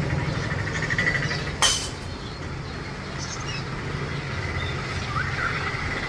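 Pet-shop ambience: a steady low hum with faint bird chirps, and one sharp click about a second and a half in.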